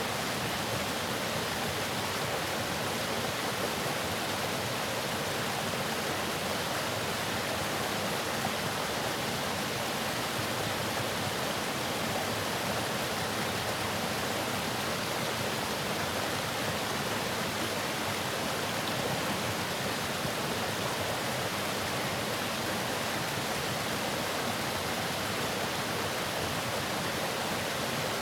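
Waterfall pouring, a steady, unbroken rush of water.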